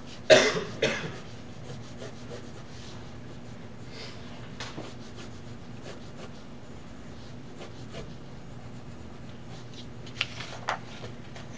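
Pencil scratching on paper as long lines are drawn, loudest in a few strokes in the first second and then faint, over a steady low hum. Near the end the paper is handled, giving a few sharp rustles.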